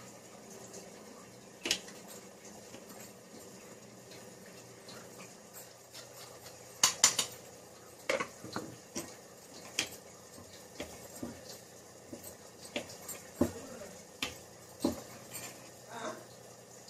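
Kitchen utensils and dishes being handled: irregular clinks and knocks of metal ware and cutlery, busier in the second half.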